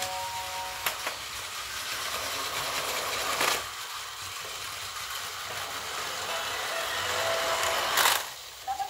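Plarail battery toy train and playset mechanism running steadily with a plastic whirring and rattling. At the start, a few electronic melody tones from the set fade out. Two short, loud plastic clatters come about three and a half seconds in and again near the end.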